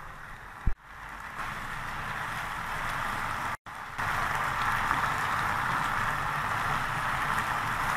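Chicken pieces bubbling and sizzling in their own yogurt-and-chicken juices in a pan over high heat, the liquid cooking down toward dry. A steady hiss, broken by a click just under a second in and a short gap about three and a half seconds in, and somewhat louder after the gap.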